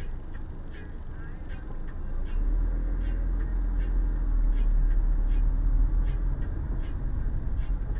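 Inside a moving car: engine and road rumble that grows louder about two seconds in, with a light ticking about twice a second.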